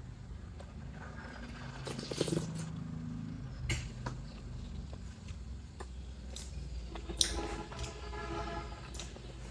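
Close-up chewing and mouth sounds of someone eating sel roti, the Nepali fried rice-flour bread, with several sharp clicks and a short hum about three-quarters of the way through.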